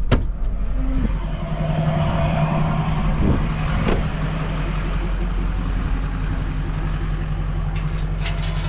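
A vehicle engine running steadily at a low, even pitch, with a sharp click at the start and a short run of clicks and rattles near the end.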